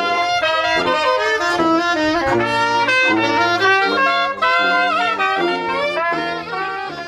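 A jazz band playing, with horns carrying the tune over a bass line. The music fades down near the end.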